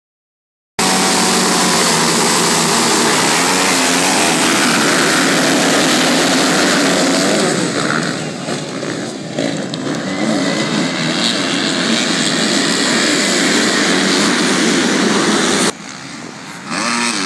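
A pack of motocross bikes revving hard together at the start line, then accelerating away. About halfway through the sound drops and wavers as the bikes move off. It cuts off suddenly near the end, leaving a quieter engine with one brief rising rev.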